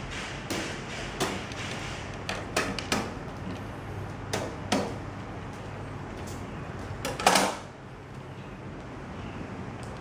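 A large kitchen knife cutting into the thick, spiky husk of a whole durian: a string of irregular sharp cracks and knocks as the blade is worked along the seam, with one louder, longer knock about seven seconds in.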